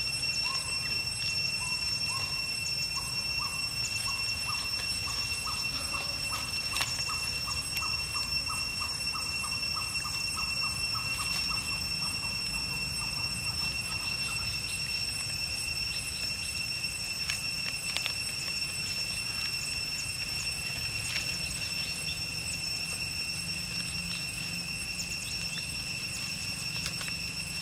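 Outdoor forest ambience: a steady high-pitched drone in two tones, with a run of short repeated call notes that quicken and then stop about halfway through, and scattered light clicks.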